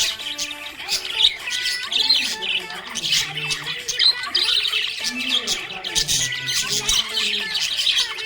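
A flock of small pet parrots chirping and squawking in a dense, constant chatter, over quiet background music with low held notes.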